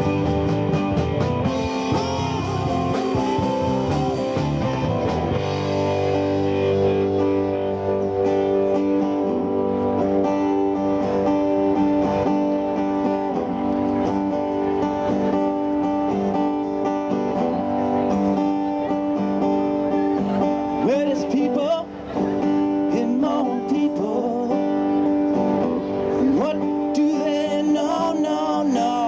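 A live rock band playing: electric and acoustic guitars over bass and a drum kit, with a man singing at times. Cymbals and drums are busy for the first few seconds, then drop back so the guitars ring on, and the full band picks up again near the end.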